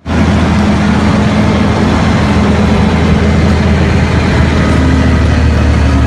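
Caterpillar mining haul truck's big diesel engine running as the truck drives past close by: a loud, steady, deep engine drone.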